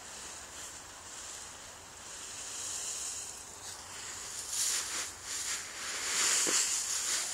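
Dry autumn leaves rustling and crunching as a redbone coonhound burrows its head through a leaf pile, with louder bursts of rustling from about halfway through.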